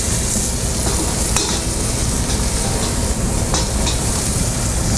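Scallops searing in hot olive oil in a non-stick frying pan over a high gas flame, sizzling steadily over a low rumble. A couple of light clicks of metal tongs against the pan, about a second and a half in and again a couple of seconds later.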